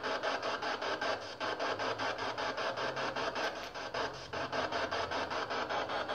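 PSB7 spirit box sweeping through radio frequencies: a chopped hiss of static pulsing about six times a second.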